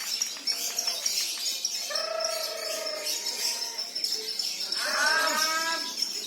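Lovebirds at a songbird contest chattering and trilling, with a steady high rapid trill throughout. Two drawn-out calls with a clear pitch stand out about two and five seconds in.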